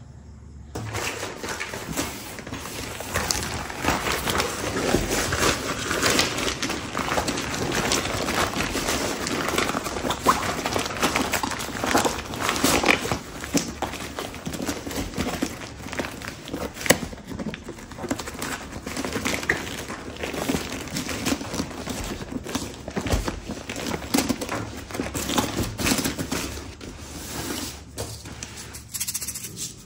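Crinkling and rustling handling noise, dense with small clicks, from a backpack and its plastic packaging being handled.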